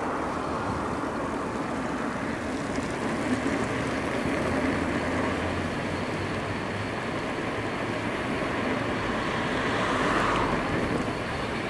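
Steady riding noise from an A2B Metro electric bike on a street: tyre and wind rush, swelling briefly about ten seconds in.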